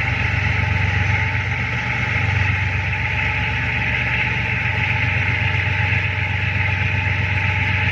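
Tugboat's diesel engine running steadily with a low drone, over a constant hiss.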